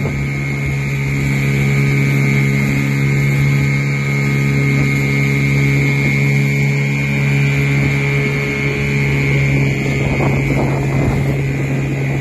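Outboard motor running at a steady pitch while the boat is underway, with wind and water noise around it.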